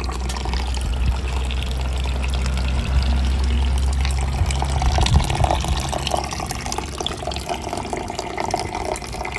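Tap water running from a faucet into a stainless-steel sink basin full of soapy water. A steady low rumble sits underneath and fades about six seconds in.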